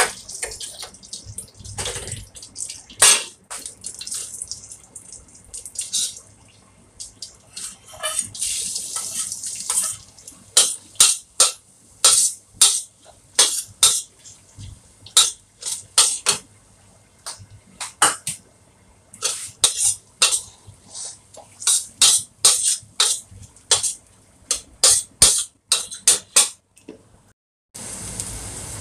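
Garlic frying in hot oil in a stainless steel wok, a hiss of sizzling, with a metal wok spatula scraping and clanking against the wok in short strokes, about one or two a second, for most of the time.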